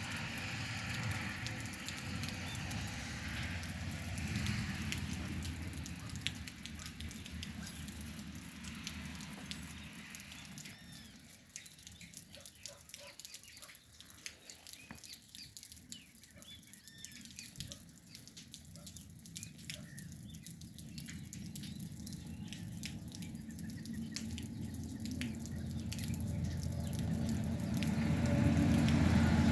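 Light rain falling and dripping, with faint bird chirps in the middle stretch; the rain grows louder near the end.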